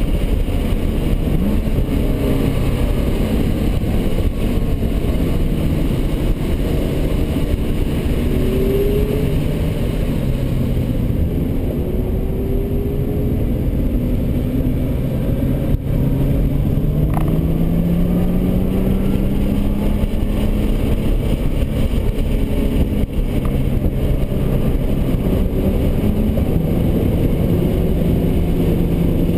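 Nissan GT-R R35's twin-turbo 3.8-litre V6 heard from inside the cabin on track, with tyre and road noise. The engine pitch climbs and falls with throttle and gear changes, rising steadily about two-thirds of the way through.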